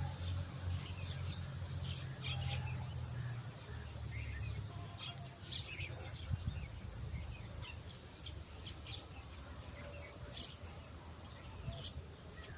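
Birds chirping, short scattered calls through the whole stretch, over a low steady hum that is strongest for the first few seconds and then fades.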